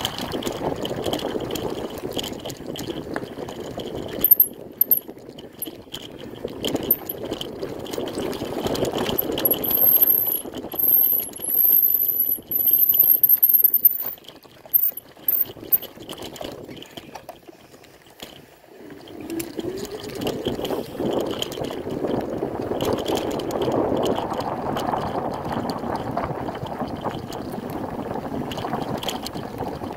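Rushing wind noise on the microphone and the rolling crunch of moving along a dirt and gravel trail. It dies down for a few seconds past the middle, then picks up again. A faint steady high buzz runs under it, and a thin high chirping comes in for a few seconds around the first third.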